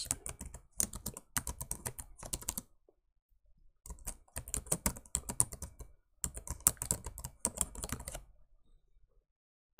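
Typing on a computer keyboard: three quick runs of keystrokes with short pauses between them, stopping a little before the end.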